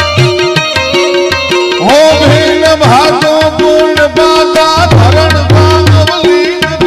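Harmonium and tabla playing a folk tune, with a steady drum rhythm under held harmonium chords. The melody slides in pitch twice, about two seconds in and again near the end.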